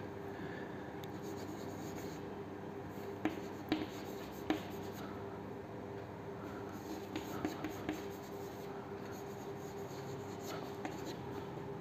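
Chalk writing on a chalkboard: faint scratching of chalk strokes, with a few short sharp taps as the chalk meets the board.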